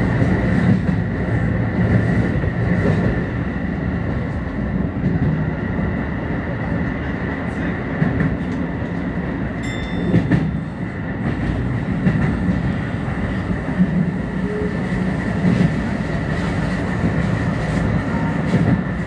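Keio 8000 series electric commuter train running at speed, heard from inside the front car: a steady running rumble with a constant faint whine, and wheels clicking over rail joints.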